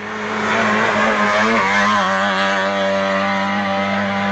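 Race car at high revs passing by at full throttle up a hill-climb road, growing sharply louder in the first half second as it comes near.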